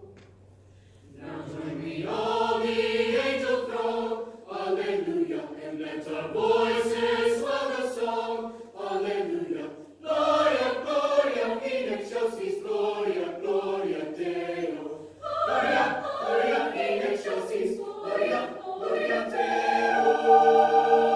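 Mixed high school choir singing in several parts. After a short pause, the choir comes back in about a second in, sings phrase after phrase with brief breaths between them, and holds a sustained chord near the end.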